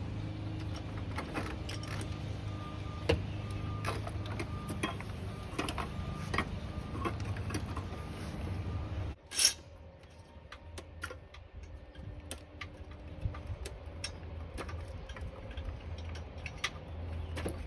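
Scattered clicks, taps and light metallic clinks of hand tools working on car parts over a steady low hum. About nine seconds in, the hum drops away suddenly and a single louder short noise follows.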